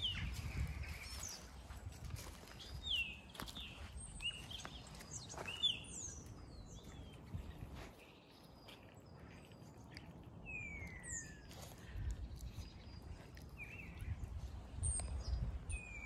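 Songbirds singing and calling, with short chirps and sliding whistles scattered throughout, over a low rumble of wind on the microphone.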